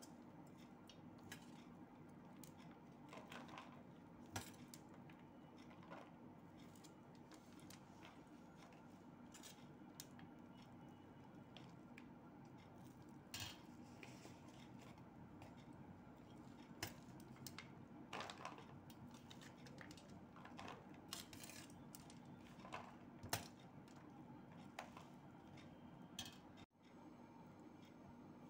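Steel slotted spoon clinking and scraping against a steel plate as it stirs and scoops a dry puffed-rice mixture: quiet, irregular clinks over a steady low hum.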